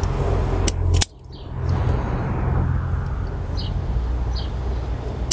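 Steady low outdoor rumble with a few short, faint bird chirps. Two sharp clicks come just before a second in.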